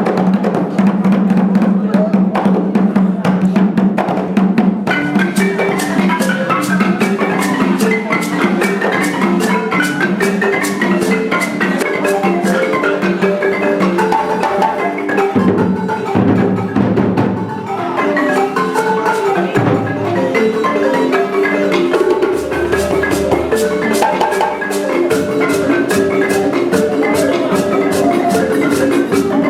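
Music: a fast run of short xylophone-like mallet notes over percussion, with sharper percussion strokes joining about five seconds in.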